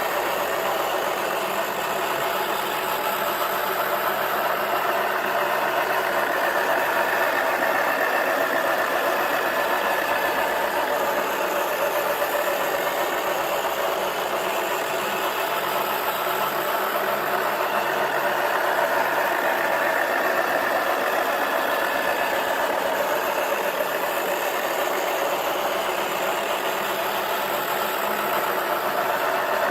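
Toy washing machine's small electric motor running steadily as its drum turns, with a slowly wavering pitch.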